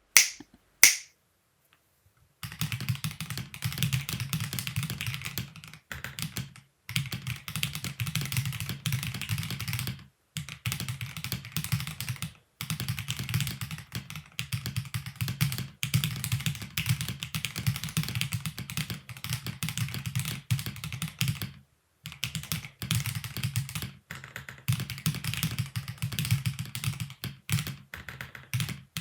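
Typing on an Akko PC75 75% mechanical keyboard in its stock, unmodified form: a dense run of keystroke clacks, broken by a few short pauses. Two sharp clicks about a second apart come just before the typing starts.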